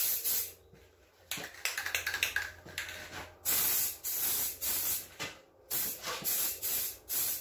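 Aerosol spray can of Rust-Oleum peel coat hissing in short spurts, first a test spray and then about six quick half-second passes.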